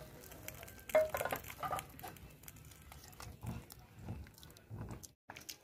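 A spoon clinks once against the pot about a second in. Then it stirs through a pot of dal in a run of soft, even strokes, mixing the fried tempering of red chillies and curry leaves into the lentils.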